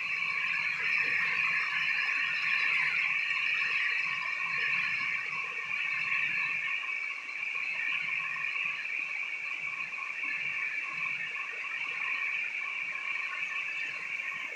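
Heavy tropical rain falling steadily: a dense hiss with a shrill high-pitched band running through it. A low rumble under it eases off about halfway through.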